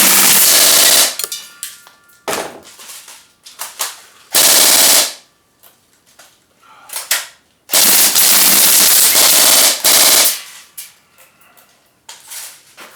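Gas-powered airgun firing full auto in rapid bursts: one burst cuts off about a second in, a short burst follows near the middle, and a longer one of about two and a half seconds comes later, with scattered sharp clicks and knocks between the bursts.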